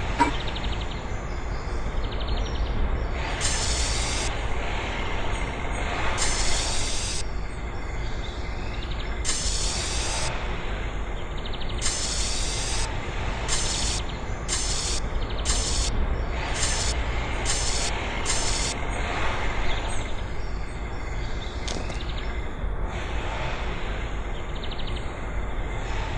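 Steady low workshop rumble with repeated hissing bursts. The bursts come singly every few seconds at first, then as a quicker run of short hisses in the middle.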